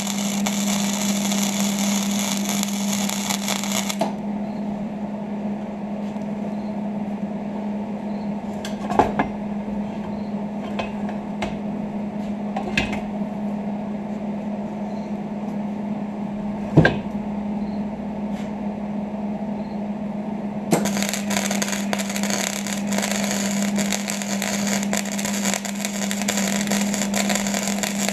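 Electric arc welding on steel, the arc crackling steadily for about the first four seconds and again from about twenty seconds in, over a constant low hum. Between the welds there are a few sharp clicks and taps.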